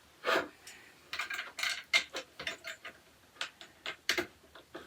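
Storage rack parts and tools being handled during assembly: a knock, then a run of irregular small clinks and clicks, the sharpest about two seconds and four seconds in.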